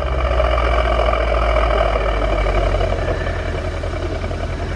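Mercedes-Benz W221 S550's 5.5-litre V8, fitted with an exhaust pop tune, idling steadily through its exhaust, the idle easing down slightly about three seconds in.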